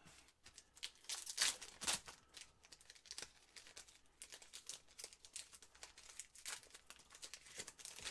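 Crinkling and rustling of trading-card pack wrappers and cards being handled, a run of quick, light rustles that comes thickest about a second in and again near the end.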